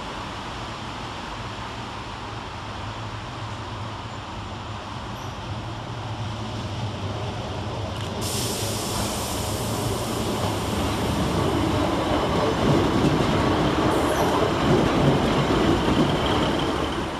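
Transport for Wales Class 150 Sprinter diesel multiple unit approaching and drawing alongside. Its steady diesel engine hum and wheel-on-rail noise grow louder as it nears, with a brighter hiss joining in suddenly about halfway through.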